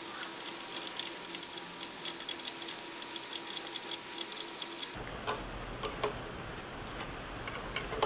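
Combination wrench tightening a small hex-head bolt on a steam whistle's lever bracket: quick runs of light metal clicks as the wrench is worked back and forth on the bolt head. About five seconds in the background changes to a low hum and the clicks become fewer and scattered.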